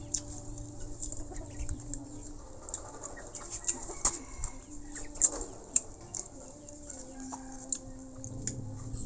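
Birds calling in held, steady notes, with many small clicks and smacks of people eating with their fingers.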